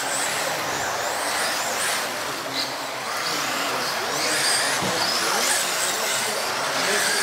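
Several electric radio-controlled off-road cars racing around an indoor carpet track. Their motors give high whines that rise and fall again and again as the cars accelerate and slow through the corners, over a steady noisy background.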